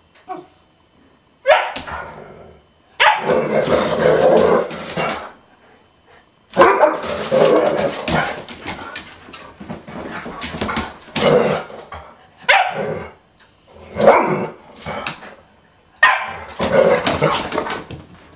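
Dogs barking in rough play, a Huskita puppy with a larger yellow dog, in loud bouts of one to five seconds with short quiet gaps between.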